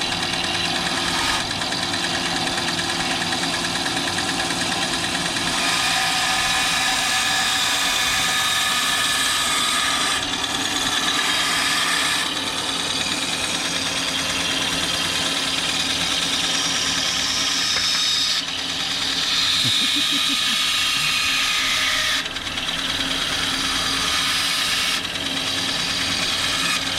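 SKIL 9-inch benchtop band saw running steadily while its blade cuts through a piece of wood fed in slowly; the cutting noise changes several times as the wood is pushed through.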